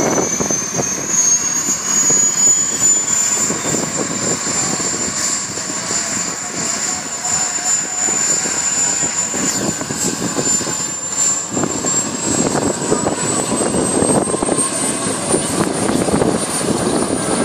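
Bell UH-1 Huey's turbine engine spooling up during start: a high whine that rises in pitch, holds steady, then climbs again near the end, over a rushing engine and rotor noise.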